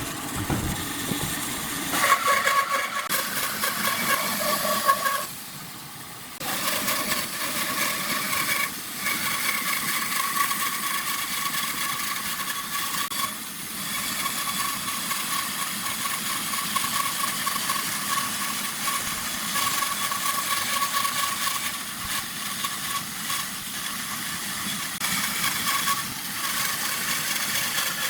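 Electric woodworking power tool running steadily with a constant whine, easing off briefly twice.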